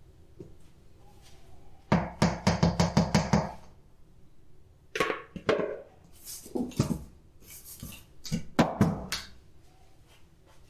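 Kitchen knocks and clatter from handling a spatula, mixing bowl and aluminium tube cake pan on a granite worktop: a quick, even run of about ten knocks about two seconds in, then several scattered knocks.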